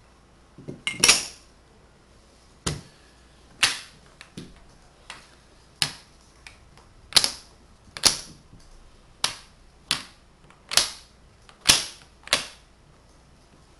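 Tegu magnetic wooden blocks, hardwood with embedded magnets, clacking together as they are handled and placed: sharp single click-clacks about once a second, with a louder cluster of clacks about a second in.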